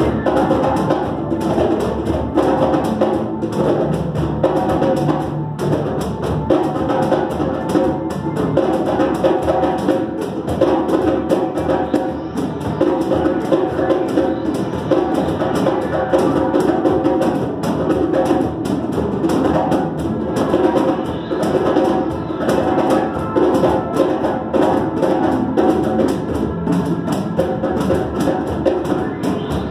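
Group hand-drum jam: several drums struck in a steady, busy rhythm, with an electronic keyboard holding sustained notes underneath.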